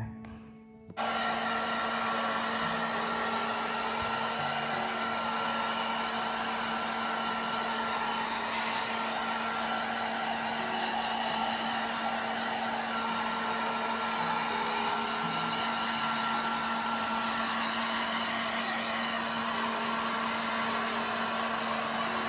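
Small handheld hair dryer switched on about a second in, then blowing steadily with a constant hum while drying a kitten's wet fur.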